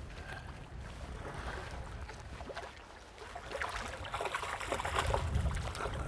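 Wind rumbling on the microphone over lapping river water, with short splashes from about halfway in as a hooked Arctic char thrashes at the surface.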